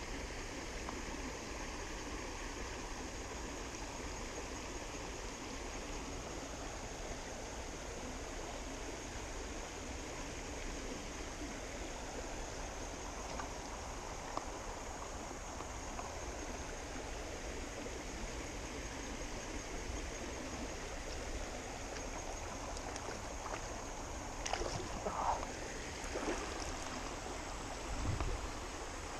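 Shallow rocky creek running over a riffle: a steady rush of water. A few brief knocks come near the end.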